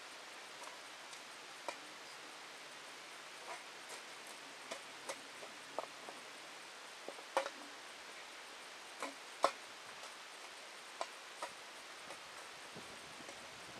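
Long-handled hoe scraping and chopping through dry grass and soil: irregular short scrapes and knocks, the loudest a little past the middle, over a faint steady hiss.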